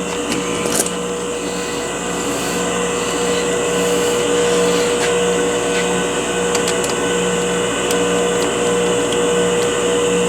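Lathe motor running steadily with a constant hum, spinning a roll of tape while an x-acto blade is held into it, with a steady hiss and scattered light ticks.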